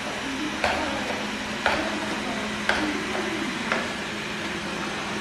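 Xiaomi Mijia 1C robot vacuum-mop running while it mops the floor: a steady motor and fan hum, with a sharp click about once a second, four in a row.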